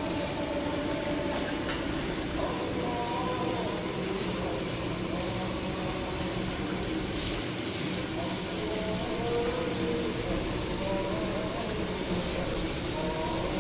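Potato kababs deep-frying in a karahi of hot oil, the oil sizzling and bubbling steadily. Faint singing runs underneath.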